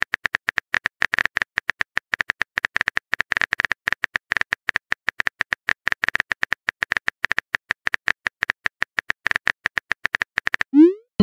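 Phone-keyboard typing sound effect from a texting-story app: a rapid, even run of small clicks, about eight a second, as a message is typed out. Near the end the clicks stop and a short rising whoosh marks the message being sent.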